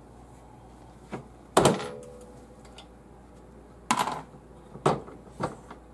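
Metal clicks and clanks of a reloading press and collet-type bullet puller being worked quickly to pull bullets from cartridges: about five separate knocks, the loudest about one and a half seconds in with a short metallic ring.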